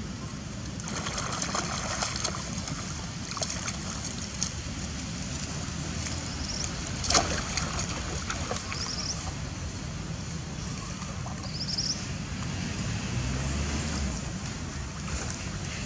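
Water splashing and sloshing as monkeys swim and play in a pond, over a steady low rumble. A sharp click comes about seven seconds in, and a few short high chirps are heard.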